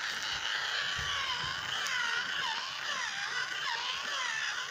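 A battery-operated toy playing an electronic siren-like sound effect: a thin, warbling tone that rises and falls about twice a second.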